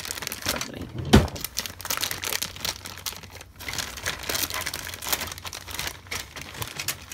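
Clear polythene bag crinkling and rustling as hands open it and handle the plastic model-kit sprues inside, with one louder knock about a second in.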